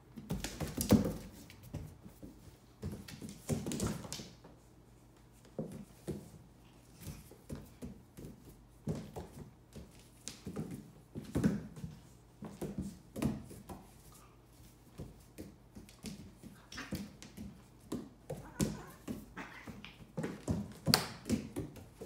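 German Shepherd puppy and cat play-fighting on a vinyl kitchen floor: irregular thumps, scuffles and claw taps, with a few short puppy vocal sounds.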